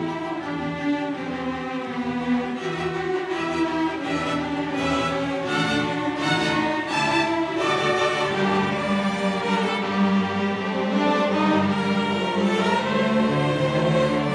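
Youth string orchestra playing a slow classical piece, with violins and cellos holding sustained notes.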